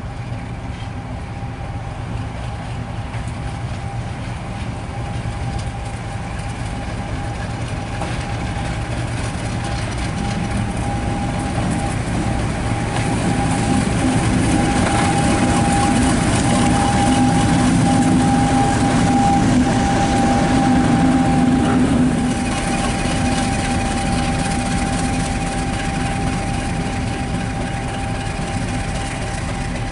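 British Rail Class 50 diesel locomotive running light past, its English Electric 16-cylinder engine working with a steady whine over the top: the fan sound that earned Class 50s the nickname "Hoover". The sound builds as it approaches, is loudest as it passes about two-thirds of the way through, then eases as it moves away.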